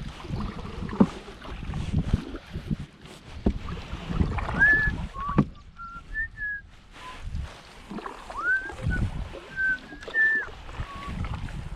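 Water splashing and knocking around a canoe in irregular strokes, with a bird giving a series of short whistled notes, some sliding up or down, from about midway on.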